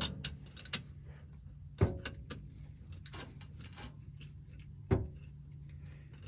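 Wrench clinking and knocking against the steel hydraulic hose fittings on an excavator, a handful of separate sharp metal clicks over a steady low hum.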